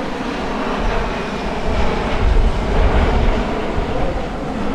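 Jet noise from a formation flyby of a KC-135R Stratotanker, with four CFM56 turbofans, and two F-16 Fighting Falcons: a steady rumble that swells about two seconds in.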